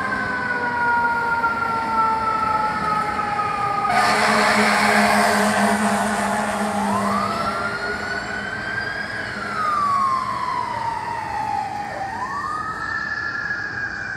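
Fire truck siren wailing, its pitch falling slowly, then rising and falling twice more. A louder, harsh blast lasts about three seconds, starting about four seconds in.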